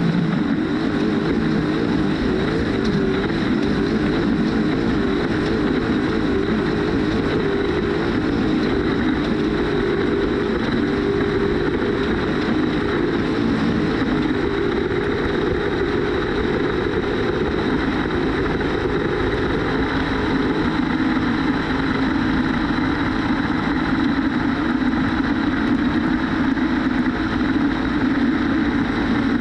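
Off-road trophy truck's engine running at speed, its note wavering up and down without a break, over a continuous rush of noise and a thin steady high whine.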